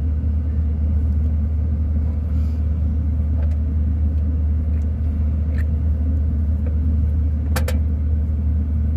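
Steady low rumble at an even level, with a few faint clicks and a short sharp sound about seven and a half seconds in.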